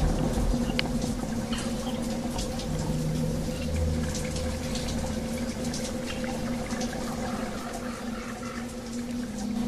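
Underwater sound on a scuba dive over a reef: a steady low hum with scattered crackling clicks, and bubbling from divers' exhaled air.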